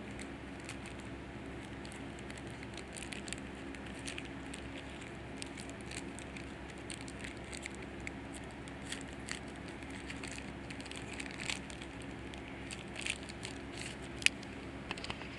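Foil Yu-Gi-Oh! booster pack wrapper crinkling and crackling in irregular small clicks as it is handled and torn open by hand, with one sharper crack near the end.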